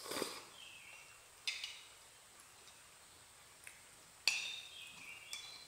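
A few short slurps and sips of instant noodles and soup, each starting sharply with a high, squeaky sucking tone.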